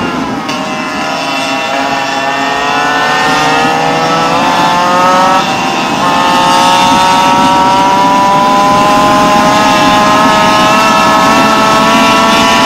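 Small two-stroke Goped engine with an expansion-chamber pipe under throttle: the revs climb for several seconds, drop off briefly about halfway through, then hold high and steady at full throttle.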